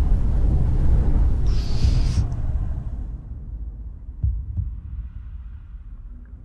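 Film sound design: a deep throbbing rumble with heartbeat thumps and a short hiss about a second and a half in. After about three seconds the sound turns dull and muffled, and a soft double heartbeat thump comes about four seconds in.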